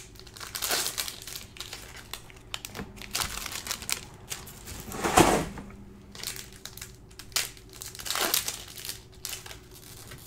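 Shiny wrappers of Upper Deck hockey card packs crinkling as the packs are handled and opened by hand, in uneven bursts with the loudest crinkle about five seconds in.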